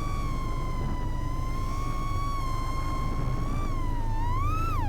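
Brushless motors and propellers of a 3.5-inch FPV freestyle quad whining at a steady pitch over a low rumble of wind and prop wash. Near the end the whine rises and then drops sharply as the throttle is chopped.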